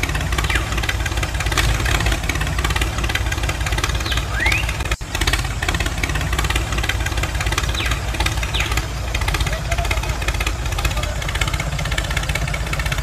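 Steady low rumble of a diesel tractor engine running at idle, with a brief dropout about five seconds in.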